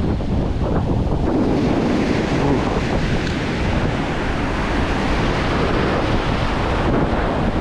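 Ocean surf washing on a beach, with strong wind buffeting the microphone in a steady low rumble.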